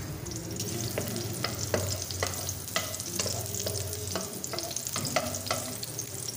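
Garlic cloves sizzling in hot oil in a metal wok while a spoon stirs them, knocking against the pan about twice a second.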